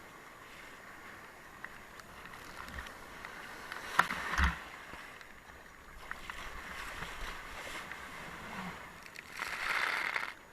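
Ocean water sloshing and rushing with wave noise, a sharp knock about four seconds in, and a louder hissing rush near the end that cuts off suddenly.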